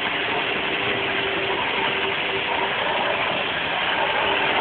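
Toy weed eater switched on and running, making a steady engine-like whir with a faint hum.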